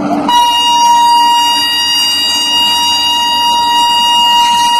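WAP7 electric locomotive's air horn sounding one long, steady high-pitched blast that starts a moment in.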